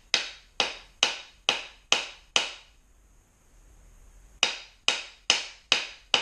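Mallet blows on a hatchet's wooden handle, driving the Plumb hatchet head down onto it. Sharp knocks come about two a second: six, a pause of about two seconds, then five more.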